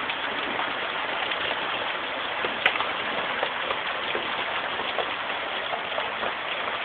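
Heavy rain with hail pouring down steadily, scattered hard knocks of hailstones striking surfaces, and one sharper crack about two and a half seconds in.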